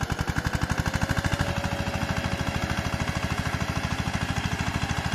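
Walk-behind power tiller's single-cylinder diesel engine running under load while ploughing, with a steady rapid beat. A faint whine rises slightly over the first second or so, then holds steady.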